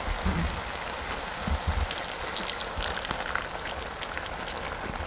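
Tomato and onion masala frying in oil in a kadai: a steady sizzle with crackles and spits that grow busier after about two seconds. A couple of soft low bumps come about one and a half seconds in.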